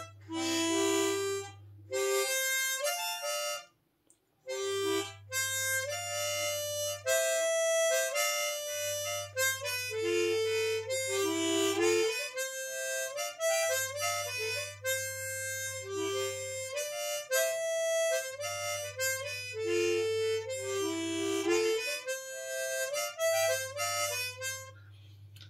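Conjurer chromatic harmonica with a slide button, played as a simple song melody of held and moving notes, with a brief break about four seconds in.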